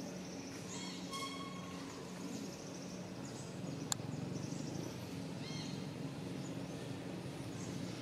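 Outdoor background: a steady low hum with a few short, high chirping calls, about a second in and again past five seconds, and one sharp click near the middle.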